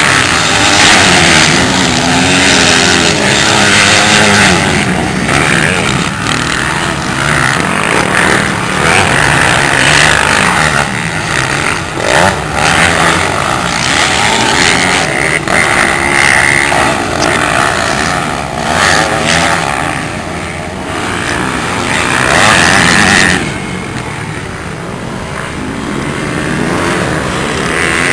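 Motocross dirt bike engines revving hard as riders race by, the pitch rising and falling with each throttle change and gear shift. The sound eases off a little about two-thirds of the way through, then builds again near the end.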